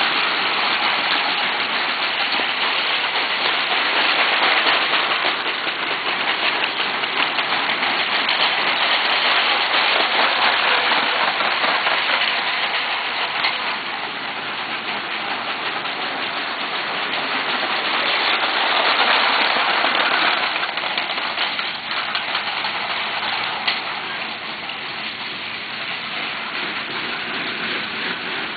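Lego 12-volt train running on its track: a dense, rain-like rattling clatter of wheels and motor that swells and fades several times as the train moves around the layout.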